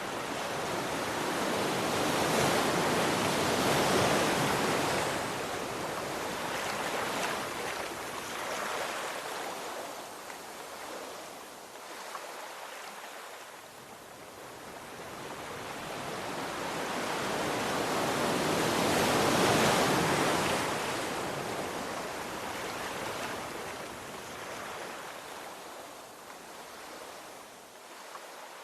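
Ocean waves breaking and washing back: two big swells of surf, the first a few seconds in and the second about two-thirds of the way through, each rising slowly and ebbing away.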